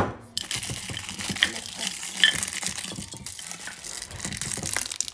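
A hand rummaging through a glass jar of plastic-wrapped candies and lollipops: wrappers crinkling and rustling, with small clicks of candy against the glass. A sharp clink comes right at the start.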